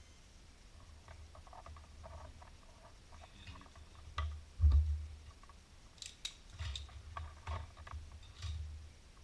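Handling noise of wires and small parts being worked by hand, with scattered light clicks and one dull knock about four and a half seconds in. From about six seconds on comes a run of sharp clicks as yellow-handled pliers work on the wiring.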